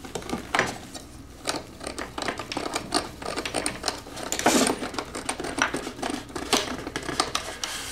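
Plastic LEGO bricks being handled and pressed together: a run of irregular quick clicks and rattles, loudest about four and a half seconds in.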